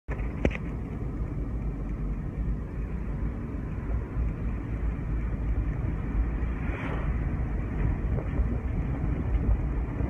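Car interior road noise while driving: a steady low rumble of engine and tyres heard from inside the cabin, with one sharp click about half a second in.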